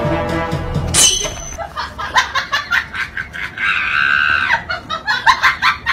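Music cuts off about a second in with a sharp sudden sound. Then comes a rapid string of short, high-pitched vocal cries, with one longer held cry near the middle.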